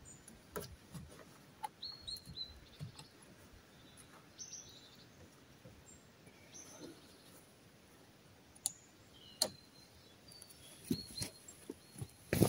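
Faint short bird chirps now and then, with scattered light clicks and knocks from hands working at a part under the front of a car; a sharper knock comes about nine seconds in and another near the end.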